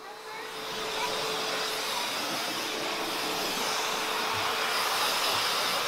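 Pet blow dryer running steadily: a rush of air over a faint constant motor hum, building up over the first second and then holding.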